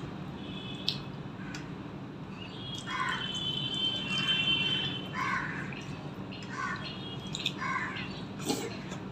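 A crow cawing over and over, about one harsh caw a second from a few seconds in, over a faint steady hum. A couple of sharp clicks come from eating by hand off a steel plate.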